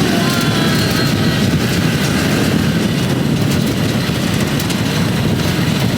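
Engine of a motorized farm cart (garong) running steadily under way, with a loud, rattling low-pitched sound.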